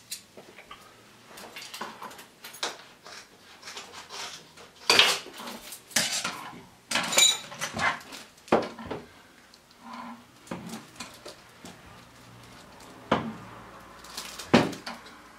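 Tools and small objects being handled and set down on a hard counter: irregular clatter, scrapes and knocks, with a brief metallic ring about seven seconds in and two sharp knocks near the end.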